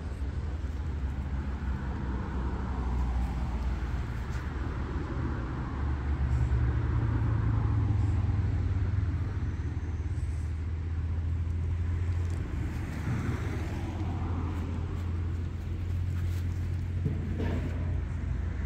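Absima Sherpa RC scale crawler driving and climbing over rocks: its electric motor and gears whine, rising and falling with the throttle, over a steady low rumble.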